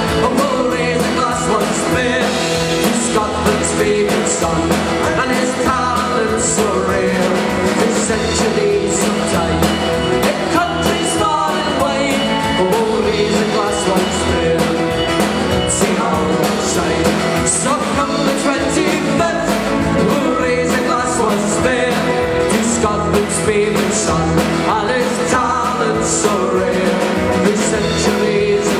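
Live band playing a song: drum kit, electric and acoustic guitars and bass guitar, at a steady full loudness.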